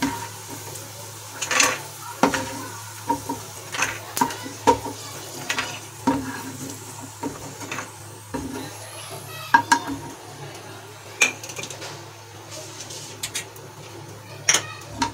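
Wooden spatula scraping and knocking in a nonstick frying pan as fried peanuts are scooped out, the peanuts clattering onto a steel plate in irregular clicks and taps.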